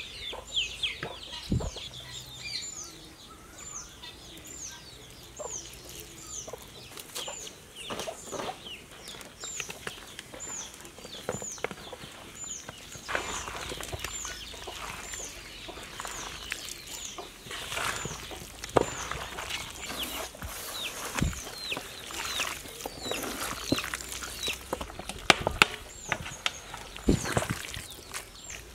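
Wet squelching and slapping of bare hands mixing raw goat meat with yogurt and spices in a large steel platter, in irregular handfuls. A bird's high, short, falling chirp repeats about once a second behind it.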